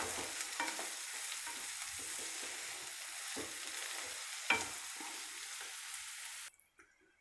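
Chopped onions sizzling in hot oil in a kadai while being stirred with a wooden spatula, which scrapes and knocks against the pan a few times; the onions are being fried to golden brown. The sizzle cuts off suddenly near the end.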